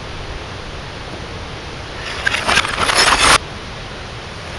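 Broken glass and plastic pieces of a smashed CRT television clattering, played in reverse: a loud crackling rush that builds for about a second and cuts off abruptly, over steady outdoor background noise.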